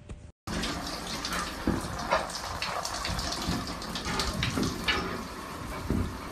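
Shower running, its water spraying and splashing against a glass shower door; it starts abruptly about half a second in.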